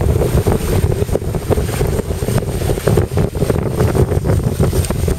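Wind buffeting the microphone, with water rushing along the hull of a sailing yacht under way.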